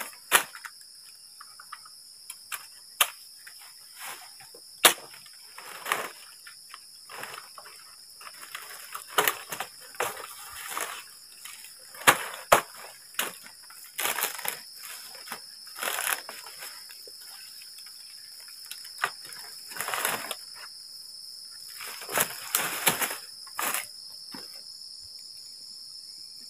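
Dry bamboo poles and dead sticks being dragged and gathered for firewood, cracking and clattering, with rustling in dry grass and leaves. Night insects chirr steadily underneath. The handling noises stop near the end.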